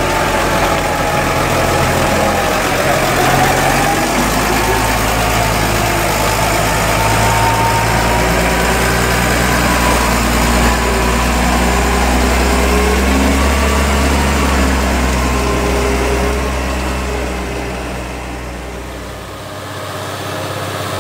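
New Holland tractor's six-cylinder diesel engine running steadily as it pulls a silage wagon, the pitch wavering slightly. It grows quieter near the end.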